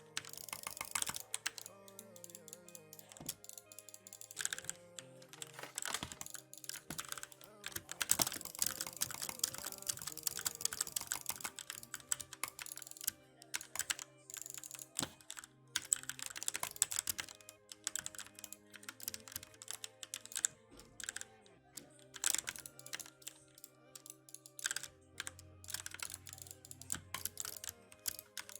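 Typing on an E-Element Z88 75% mechanical keyboard: a steady run of keystroke clicks, with a dense fast flurry about eight to thirteen seconds in.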